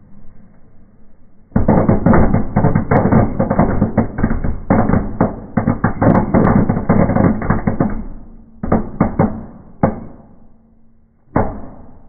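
A 'Knallbonbon blau' fireplace firework going off in the hearth: a dense, rapid run of small crackling bangs starts about a second and a half in and lasts several seconds, then thins to a few separate pops near the end.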